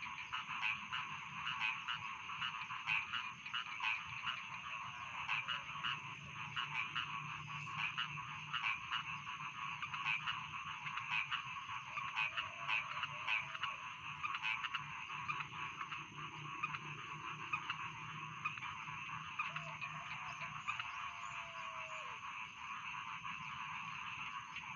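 A chorus of rice-field frogs croaking, many short calls overlapping without a break. A steady high-pitched tone runs beneath them.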